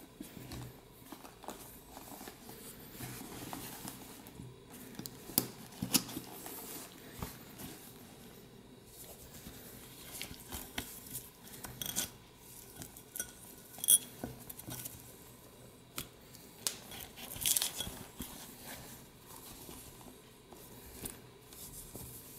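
Handling noise from a Pierre Hardy calfskin messenger bag being turned and opened: rustling and rubbing, scattered clicks, and a sharp clink about fourteen seconds in.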